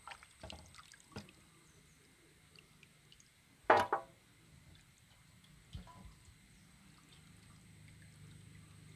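Water sloshing and dripping as wet chicken wing pieces are lifted out of a steel bowl of rinse water, with small faint knocks early on. About four seconds in comes one short, louder sound.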